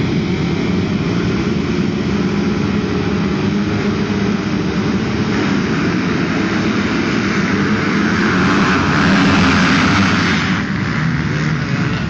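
A full field of motocross bikes revving together on the start line, then launching off the gate at full throttle, the massed engine noise swelling to its loudest about eight seconds in and easing slightly near the end as the pack pulls away.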